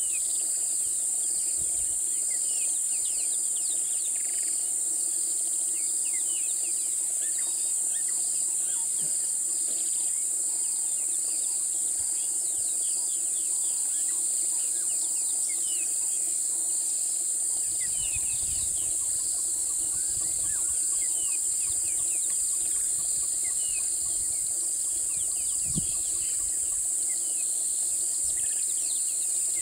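Steady high-pitched drone of insects in the bush, with a second insect pulsing over it and many short bird chirps scattered through. A low rumble comes about two-thirds in, and a single soft knock near the end.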